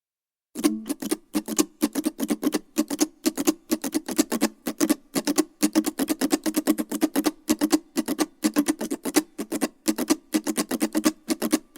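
Mandolin played with a pick: a fast, continuous run of picked notes, several strokes a second, starting about half a second in after a moment of silence.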